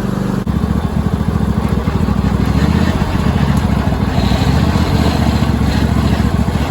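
Cub Cadet riding tractor's swapped-in 26 hp Briggs & Stratton engine running. About half a second in there is a click, and the engine steps up louder with a fast, even pulsing beat.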